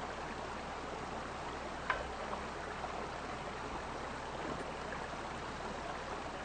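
Shallow creek running steadily, a constant rush of water, with one brief tick about two seconds in.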